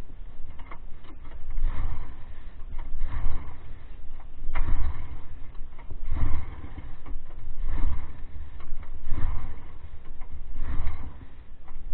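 1978 Polaris Gemini snowmobile's twin-cylinder two-stroke engine running as the sled moves through snow, heard muffled through an action camera, swelling and easing about every second and a half.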